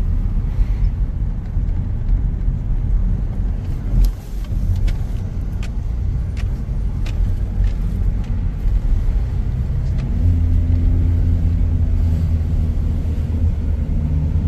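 Car driving along a road, heard from inside the cabin: a steady low rumble of engine and tyres. There are a few light clicks in the middle, and a steadier engine hum comes in about ten seconds in.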